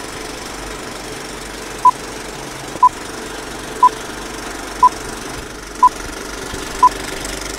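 Film projector clattering steadily, with a short beep once a second, six in all from about two seconds in: an old-film countdown leader.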